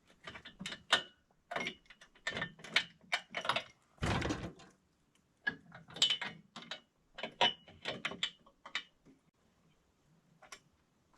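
Ratchet socket wrench clicking in short runs as bolts on a tractor snowblower's gearbox are worked loose, with a heavier metal clunk about four seconds in.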